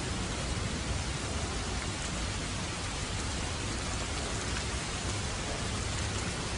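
Steady rainfall, an even hiss of drops with no breaks.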